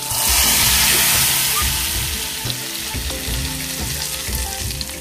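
Hot oil-and-ghee tempering with garlic and spices poured into a pot of cooked dal, sizzling as it hits. The sizzle starts suddenly, is loudest in the first second, then slowly dies down.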